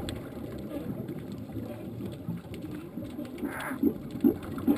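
Underwater sound on a dive among sea lions: a steady low rumble of water. About three and a half seconds in comes a short hiss, followed by a run of short, loud low pulses a few tenths of a second apart.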